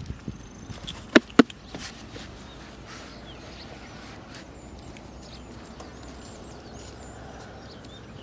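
Two sharp knocks about a second in, then small birds chirping, high and brief, over a steady outdoor hiss.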